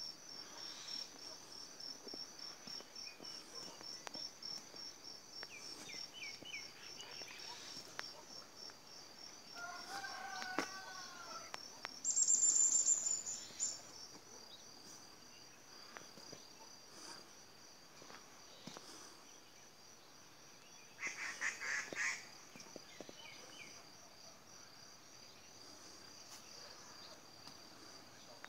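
Insects chirping steadily in a fast, even pulse, high in pitch. Over it come a few short animal calls: a wavering call about ten seconds in, a loud shrill call lasting over a second about twelve seconds in, and a short rapid burst of calls about twenty-one seconds in.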